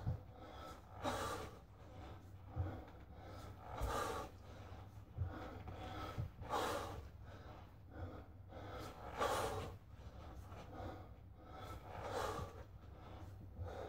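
A man breathing hard through a set of one-arm kettlebell snatches: a sharp, noisy breath roughly every second and a half, in time with each swing of the bell. A few short low thumps come in between.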